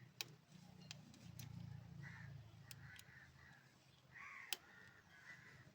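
Faint, harsh bird calls, several in a row, with a few sharp clicks, the loudest about half a second in and near the end.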